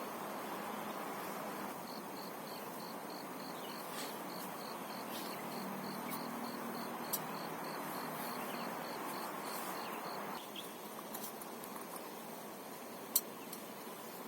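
An insect chirping in short, high, evenly spaced chirps, about three to four a second, for roughly eight seconds before it stops. Under it runs a steady rushing noise that eases slightly near the end, with a couple of faint clicks.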